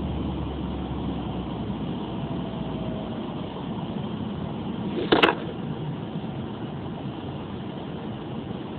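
Car driving on a snow-covered road, heard from inside the cabin: a steady rumble of engine and tyres on snow. A single short, sharp knock stands out a little after five seconds in.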